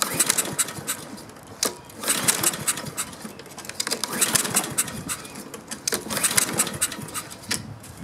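Honda mower engine being pull-started with its recoil starter: repeated pulls about every two seconds, each a quick run of whirring clicks as the engine cranks. It never catches, even with starting fluid in the intake, a no-start that comes down to a missing ignition spark.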